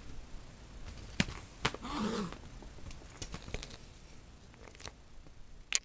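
Two cats play-fighting in and around a fabric cat tent: scattered sharp knocks and scuffles from their bodies and paws hitting the tent and floor. A short voice-like sound comes about two seconds in.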